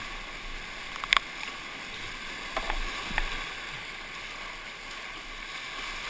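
Class IV whitewater rapids rushing steadily around a kayak. There is one sharp knock about a second in, the loudest sound, and a couple of smaller knocks a second or two later, from the paddle and spray striking the boat and camera.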